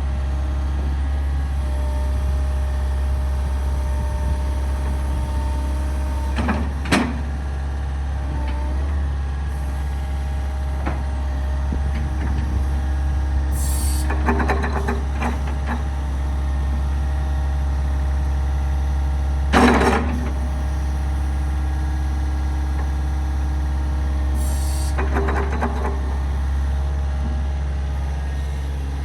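Diesel engine of a Doosan DX140LCR-5 excavator running with a steady low drone. A few short, sharp hissing or clanking sounds come about four times, the loudest roughly two-thirds of the way through.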